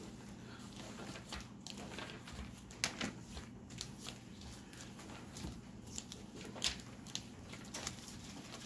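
Pages of a Bible being turned and handled by hand: a few faint crinkles and soft ticks over a steady low room hum.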